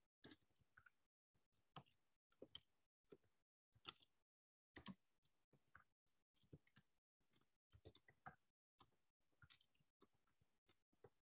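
Faint, irregular clicks of keys being pressed on a computer keyboard while a sentence is typed.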